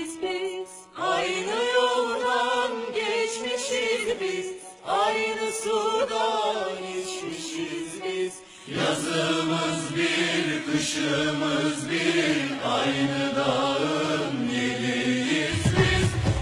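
Background music: a song with voices singing in phrases broken by short pauses, joined about nine seconds in by a fuller accompaniment with a bass line.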